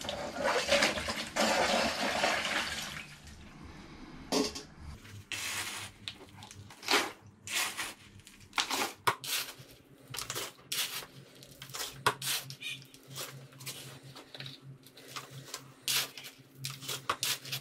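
Water poured from a jug into a plastic tub for the first three seconds or so. Then a small hand scoop digs again and again into a bucket of gravel aggregate, giving a run of short, sharp scrapes.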